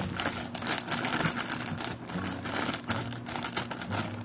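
Plastic courier pouch crinkling and rustling in the hands as it is pulled open: a rapid, irregular run of small crackles.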